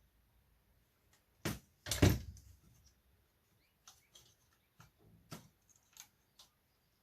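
Knocks and clicks of hard parts being handled on a workbench during the teardown of an old Apple eMac: a heavy thud about two seconds in, then several lighter taps and clicks.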